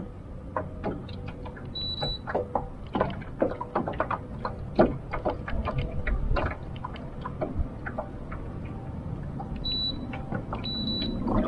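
A small metal boat rocking in choppy water, with irregular knocks and slaps from the waves against the hull over a rumble of wind. Short high electronic beeps sound about two seconds in and twice near the end.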